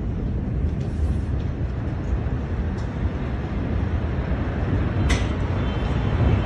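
Steady low rumble heard in the aftermath of a huge explosion, recorded on a phone microphone outdoors, with a brief sharp sound about five seconds in.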